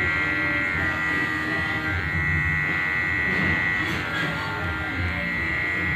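Electric hair clipper running with a steady buzz while it trims hair at the side of the head.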